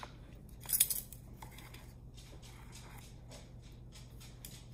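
Measuring spoon scooping paprika out of a large plastic spice jar: a couple of short scrapes and rustles, the loudest about a second in.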